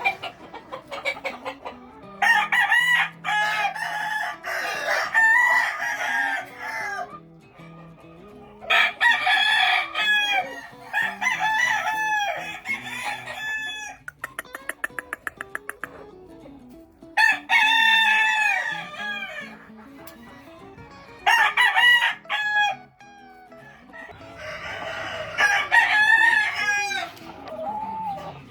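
Gamefowl roosters crowing again and again, several crows overlapping, with runs of rapid clucking in the gaps between crows.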